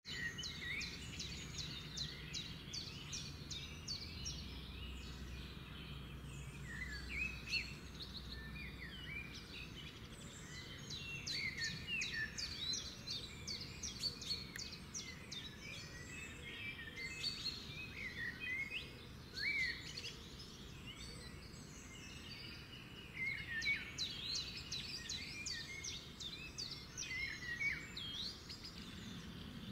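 Several songbirds calling and singing at once, a dense, overlapping chorus of quick chirps and short down-slurred notes, over a faint steady low rumble.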